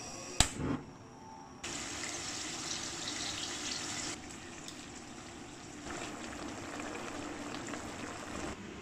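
A sharp click as the gas stove burner is lit, then pork belly sizzling as it pan-fries in oil. The sizzle steps louder and softer a few times.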